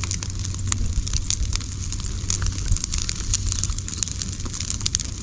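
Dry rice straw burning and crackling, with frequent irregular sharp snaps over a steady low rumble.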